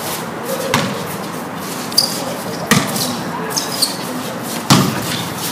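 A basketball knocking on a hard court surface during play: four separate, irregularly spaced knocks, the loudest near the end, over a steady background of court noise.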